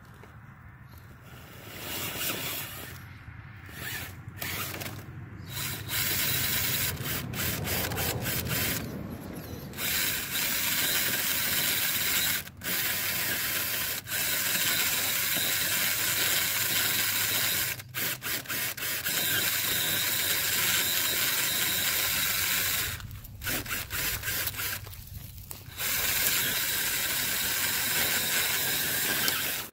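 RC rock crawler's electric motor and geared drivetrain whirring under load as it climbs over logs and branches. It builds up over the first few seconds, then cuts out and comes back several times as the throttle is let off and reapplied, with a longer pause near the end.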